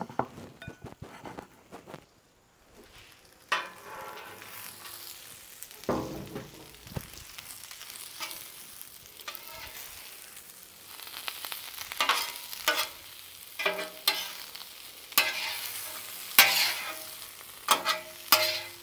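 Chicken chunks and vegetables sizzling on a Blackstone flat-top griddle, starting a few seconds in, with a metal spatula scraping and clacking on the steel cooktop as the food is tossed. The spatula strokes come more often and louder in the second half.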